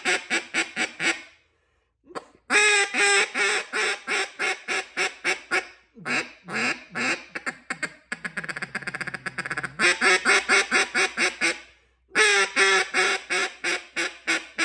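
Bocote-wood duck call blown by mouth, its freshly clipped reed sounding runs of about ten quacks each with short pauses between, and a rapid run of quick notes about eight seconds in. A tuning test of the reed: it sounds pretty good.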